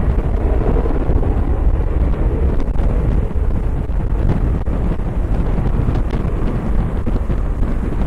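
Strong, gusty wind buffeting the microphone: a loud, continuous low rumble.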